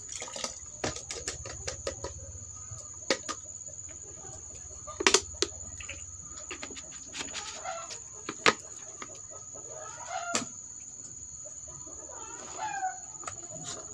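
Clicks and knocks of plastic bottles and a glass jar being handled on a table, the loudest a few seconds apart, with chickens clucking now and then in the background over a steady high tone.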